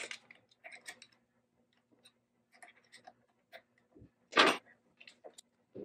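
Light clicks and taps of a metal CNC Z-axis assembly being handled and positioned against the router's gantry carriage, with one louder, short rustling noise about four and a half seconds in. A faint steady hum runs underneath.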